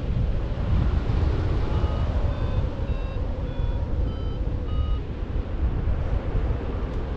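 Airflow buffeting the microphone in flight, with a paragliding variometer giving about six short beeps a little over half a second apart, between about two and five seconds in. The beeps vary in pitch and signal that the glider is climbing.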